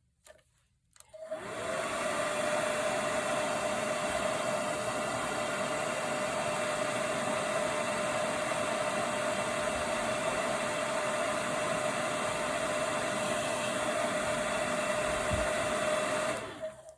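Handheld hot-air blower switched on about a second in, running with a steady whine, and switched off near the end. It is warming a phone's back glass to soften the adhesive holding a sensor.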